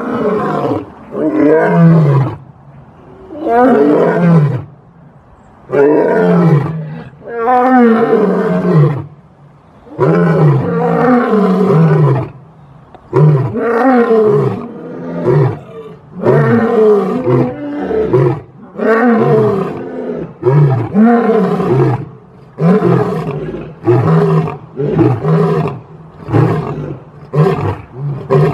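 A lion roaring over and over, about twenty loud calls, many of them falling in pitch, coming closer together toward the end.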